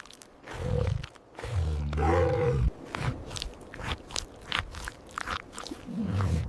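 A big cat growling: one deep call lasting just over a second, about a second and a half in, followed by a run of short crunching, chewing-like clicks and another low growl near the end.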